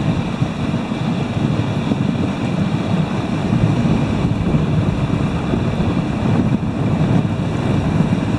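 Steady low rushing noise from a moving dog sled: wind buffeting the microphone and the sled running over snow behind the dog team.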